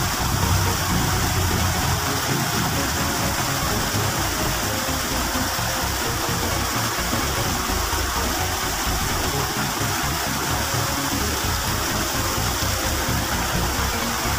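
Small waterfall spilling into a pool, a steady rush of water.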